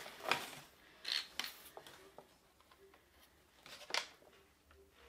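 A clear plastic ruler being handled and slid across the resin-drill surface of a diamond painting: a few short scraping swishes with quiet between them.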